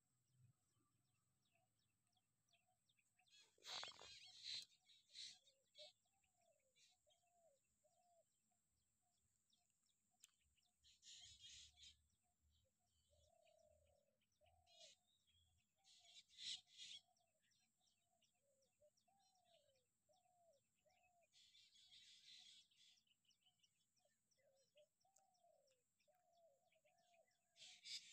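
Faint birdsong: a bird repeats short, low, arching calls over and over, with a few brief, louder bursts of high-pitched chirping.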